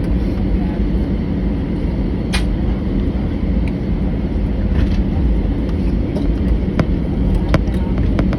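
Steady low rumble inside the cabin of an Airbus A319 airliner taxiing, its jet engines at low power, with a few sharp clicks.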